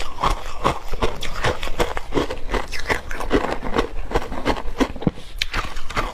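Ice chunks coated in matcha milk powder being bitten and chewed close to the mic: a steady run of crisp crunches, about three a second.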